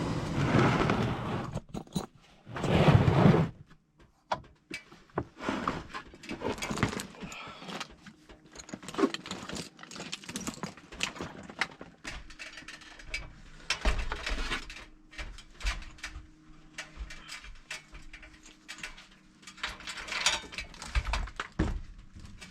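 Irregular knocks, clunks and rattles of someone moving about and handling tools and gear while climbing out of an attic, with a short loud rush of noise about three seconds in.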